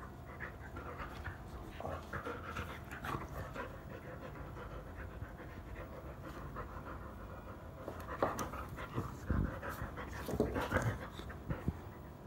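Dog panting while play-biting a person's hand, with irregular mouthing noises. They are busiest a couple of seconds in and again from about eight to eleven seconds in.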